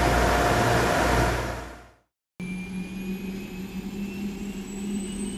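A ship's engine noise, a dense rush with a low hum, fades out about two seconds in. After a short gap a fighter jet's engine runs with a steady low hum and high whines that slowly rise in pitch.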